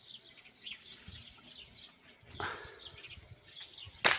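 Sparrows chirping busily, many short high chirps overlapping. A single sharp crack near the end is the loudest sound.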